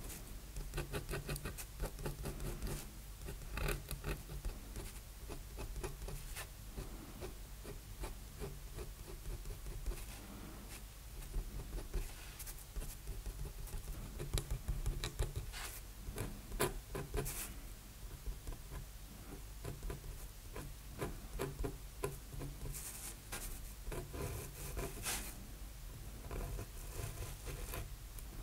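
Steel G-pen dip nib scratching across drawing paper in many short, quick strokes while inking. A faint steady low hum lies underneath.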